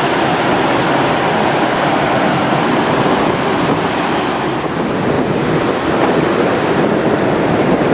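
Strong wind on the open deck of a ferry under way, buffeting the microphone over a steady rush of sea. The noise is loud and even throughout, with no separate events.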